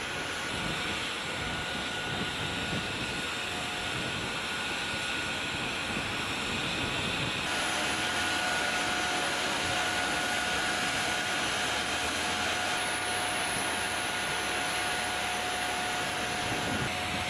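Jet aircraft turbine running steadily, a constant high whine over a rushing noise; it steps a little louder about halfway through.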